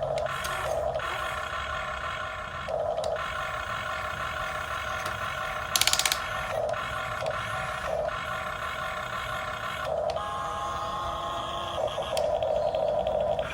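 A radio-controlled model excavator runs with a steady electric whine from its motor and hydraulic pump. Its pitch shifts in short spells as the machine works, and there is a brief sharp rattle about six seconds in.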